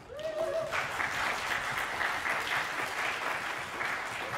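Audience applauding, a dense steady clatter of many hands, with a short shout from a voice near the start.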